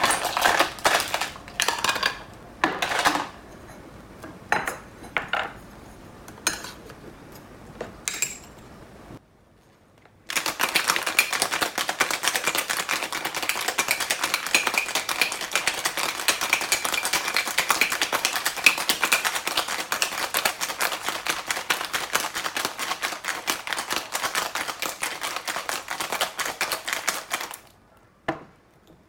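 Scattered separate clinks and knocks. After a short pause, a cocktail shaker is shaken with ice: a fast, steady rattle for about seventeen seconds that stops abruptly.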